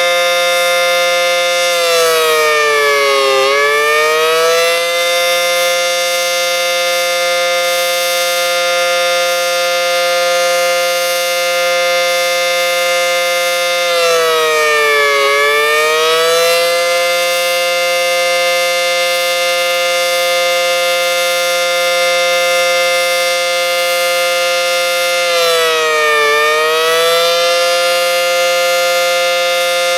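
ACA Banshee electromechanical outdoor warning siren running at full speed with a steady tone, its pitch dipping and climbing back three times, roughly every eleven seconds: a fire signal.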